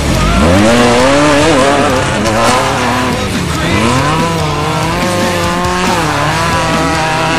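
Off-road race vehicle's engine revving hard, its pitch climbing and falling again and again with the throttle.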